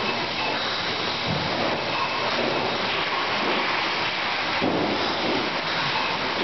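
Bottling-line machinery running: conveyors and equipment make a steady noise, with a few faint high steady tones in it.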